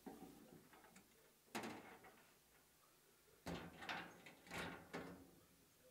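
Faint clunk of a gun cabinet door shutting about a second and a half in, followed by two more clunks of the cabinet's locking mechanism near the middle. Each fades quickly.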